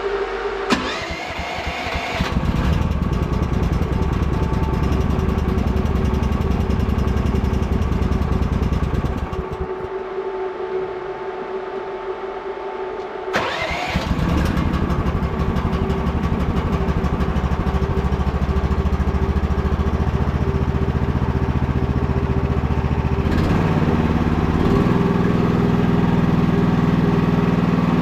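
Small Briggs & Stratton petrol engine on a mini skid steer starting and running. About ten seconds in its rumble drops away for a few seconds, then comes back up, and near the end it changes pitch as the throttle or load changes. A steady whine runs under it the whole time.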